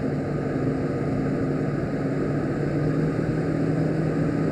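Car driving on the highway, heard from inside the cabin: steady engine and road noise with a constant low hum.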